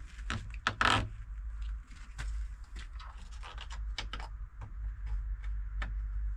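Scattered light knocks and clicks, with a brief louder scrape about a second in, over a steady low rumble: handling noise from work on the build.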